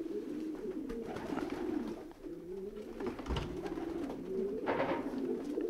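Racing pigeons cooing in the loft: a continuous chorus of overlapping low, wavering coos from many birds, with a soft knock a little over halfway through.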